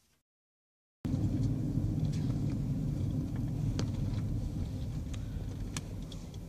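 Steady low rumble of road and engine noise inside a moving car's cabin, starting abruptly about a second in, with a few faint clicks over it.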